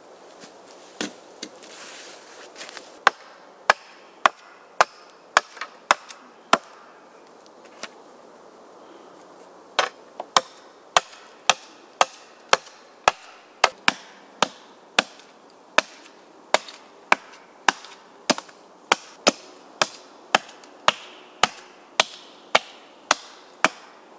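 Hatchet chopping into a wooden pole: sharp blows of the axe into wood, about two a second, with a pause of a few seconds partway through before the chopping resumes at a steady pace.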